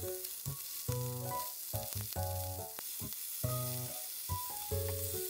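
Meat-wrapped rolls sizzling in hot oil in a frying pan, with light taps and scrapes as chopsticks turn them.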